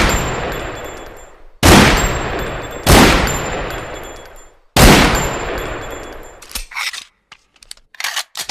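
Desert Eagle pistol shots: three loud shots roughly a second and a half apart, each with a long echoing tail, followed near the end by several short, quieter metallic clacks.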